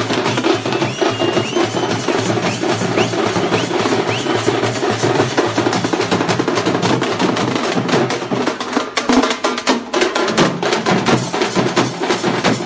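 Fast, dense drumming that keeps going steadily all through.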